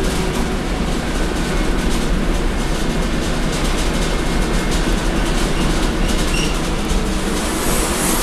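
Scania DC9 five-cylinder diesel of a Scania K230UB city bus running under way, heard inside the passenger cabin, with steady rattling from the body and fittings. A brief hiss comes near the end.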